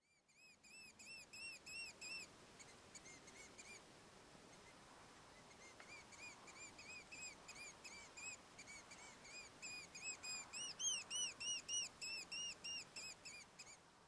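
Diederik cuckoo calling: a run of short whistled notes, each rising and falling, about four a second, in bouts that grow louder in the second half, over a faint steady hiss.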